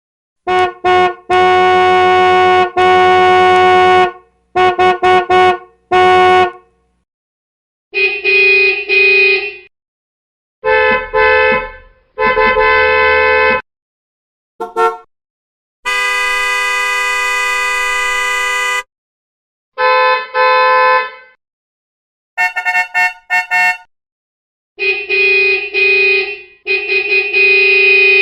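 A series of different car horns sounding one after another: quick double and triple beeps alternate with longer held honks. Each group stops dead into silence before the next, and the longest is one steady blast of about three seconds a little past the middle.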